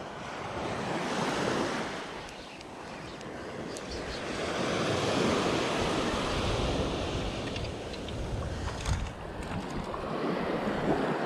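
Small waves breaking and washing up a sandy beach, swelling and falling every few seconds, with wind buffeting the microphone. A brief click about nine seconds in.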